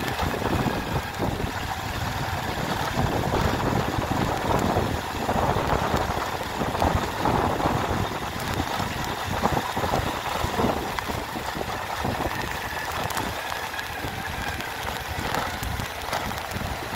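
A vehicle's engine running steadily while driving, with road and wind noise heard from on board.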